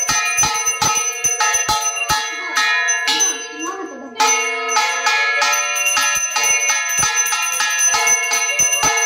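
Puja hand bell rung rapidly, about four strikes a second. It stops for a couple of seconds after about two seconds in, then starts again abruptly just after four seconds.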